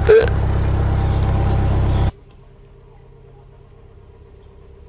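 Narrowboat engine running steadily at cruising speed, heard close by at the stern. About two seconds in it drops suddenly to a faint, steady hum.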